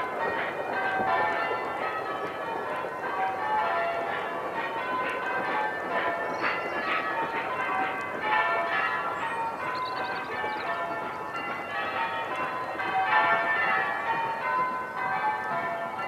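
Church bells ringing, several bells of different pitch struck one after another in a steady, unbroken sequence.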